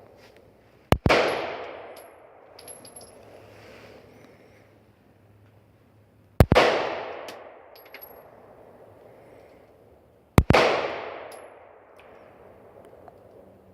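Three single gunshots, about five and then four seconds apart, each followed by a long echoing decay.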